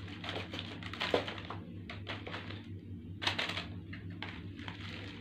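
A crinkly snack packet rustling and crackling as it is torn open and its contents pulled out, with a few sharp ticks and a louder burst of crinkling about three seconds in.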